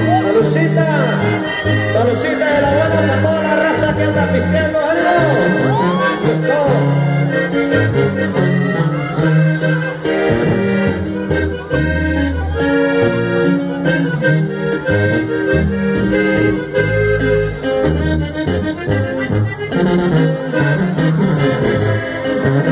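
Live band music led by an accordion playing melodic runs over a bass line, with no singing.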